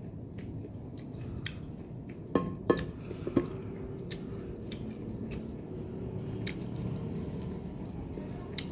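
Close-up eating sounds: soft chewing and mouth noises, with three sharp clinks of tableware about two and a half to three and a half seconds in.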